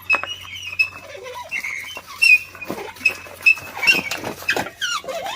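Repeated short, high-pitched animal calls, several a second, with a few faint clicks.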